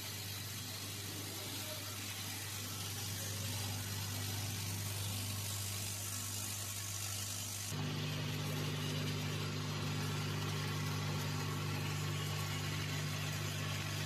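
Steady electric hum of a sorting machine's vibratory feeder running as it shakes plastic furniture parts down its tray. About 8 seconds in, a second, higher hum joins.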